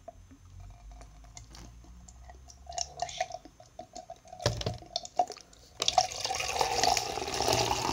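Orange energy drink pouring from an upturned bottle's sports cap into a cup: a steady splashing stream that starts about six seconds in. Before it come a few faint clicks and a thud.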